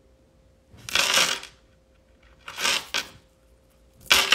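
Three short rustling scrapes, about a second apart, the last one the loudest.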